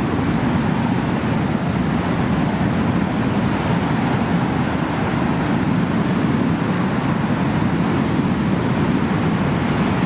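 Heavy rain and strong wind making a steady, even roar throughout.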